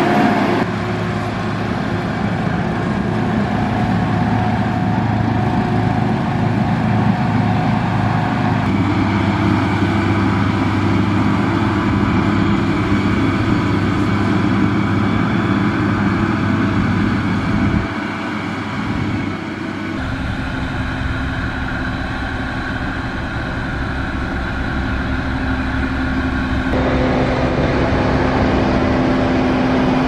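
Motor grader's diesel engine running steadily under load, its note changing abruptly several times.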